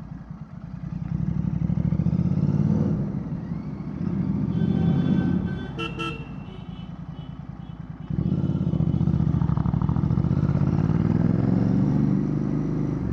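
Royal Enfield Bear 650's 648 cc parallel twin through a Red Rooster Performance aftermarket exhaust, a thick grumble rising and falling as the bike is ridden. A short vehicle horn toot sounds about six seconds in, and about eight seconds in the engine note jumps up suddenly and holds steady and loud.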